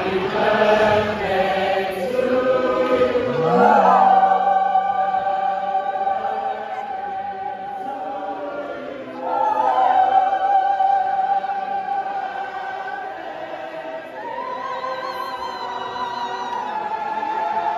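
Large mixed choir singing, with long held chords that swell louder about four seconds in and again about nine seconds in.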